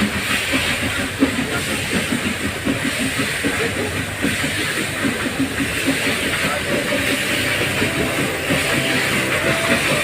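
Nilgiri Mountain Railway toy train running along the track: a steady hiss with a dense, uneven clatter of wheels and coaches.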